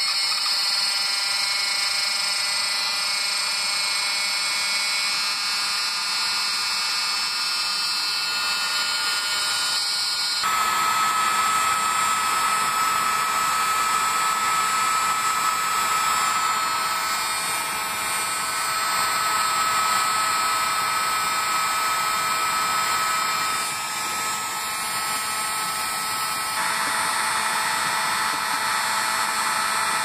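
Electric heat gun running steadily, its fan motor blowing hot air. About ten seconds in, the sound changes and a steady whine comes in.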